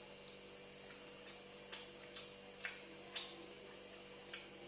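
Faint, irregular soft clicks about half a second apart, from about a second in, as someone eats a mouthful of food, over a faint steady hum.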